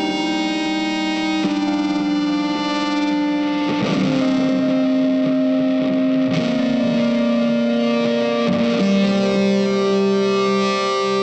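Background music led by a guitar played through effects, with distortion, holding long notes that change every couple of seconds.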